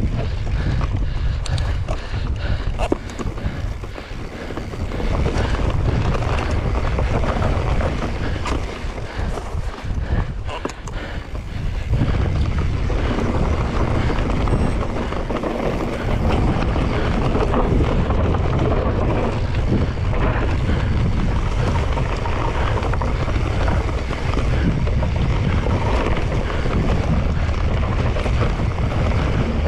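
Wind buffeting the microphone: a steady rumbling noise that drops for a couple of seconds about ten seconds in, then runs steadier and louder.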